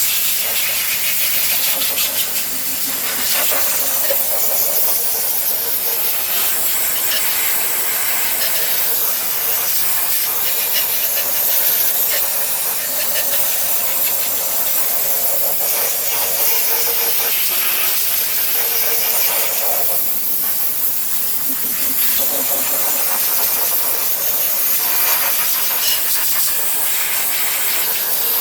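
Steady, loud hiss of a high-pressure spray blasting grime off blackened engine parts. The hiss swells and fades every few seconds as the spray moves over the parts.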